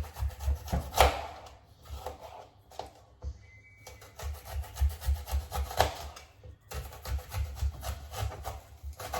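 Knife slicing an onion on a cutting board: a run of short, irregular cuts and scraping strokes, with sharper knocks about a second in and again near six seconds.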